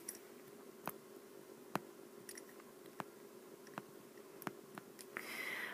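Faint, scattered clicks of a stylus tapping on a tablet screen during handwriting, roughly one a second, over a low steady hum, with a soft breathy hiss near the end.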